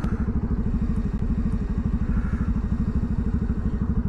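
Bajaj motorcycle's single-cylinder engine idling at a standstill with a steady, rapid low pulse, heard through microphones inside the rider's helmet.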